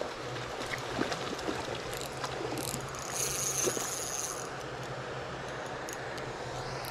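Spinning reel being cranked steadily to reel in a hooked trout, its gears whirring as a low hum, with a brief high-pitched whine about three seconds in.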